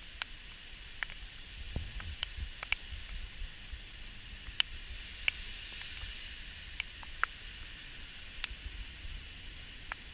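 Steady hiss of light rain with irregular sharp ticks of drops striking the camera, and a few low thumps about two seconds in.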